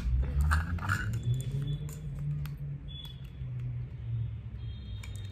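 Small clicks and taps of fingers and a lid on a cosmetics jar as its lid is twisted and pried open by hand, over a steady low rumble. The clicks come mostly in the first second or two, with a few more later on.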